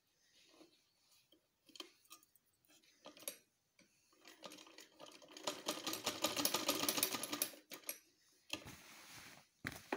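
Old mechanical sewing machine starting a seam on a kameez collar band. A few soft clicks come first, then the machine runs for about three seconds with a rapid, even clatter of stitches, stops, and runs again briefly near the end.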